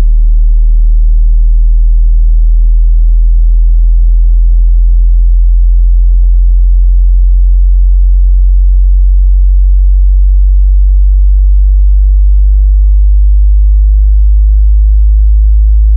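Loud, steady very low-pitched sine test tone, well below 50 Hz, with faint overtones above it, as played in a hearing test.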